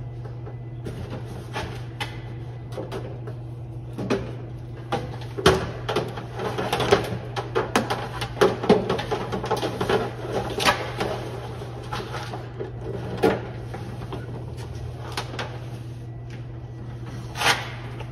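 Scattered knocks, clunks and rattles from a heavy CRT television being lifted and carried, busiest in the middle with one more loud knock near the end, over a steady low hum.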